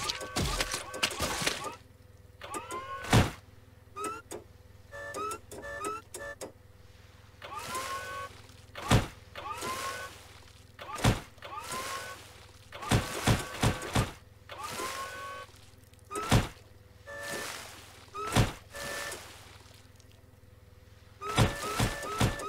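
Cartoon forklift repeatedly ramming its forks into a whale's body: the motor whirs up in short rising whines, a steady hum and intermittent beeps run under it, and a sharp thud lands every one to three seconds as the forks strike the carcass.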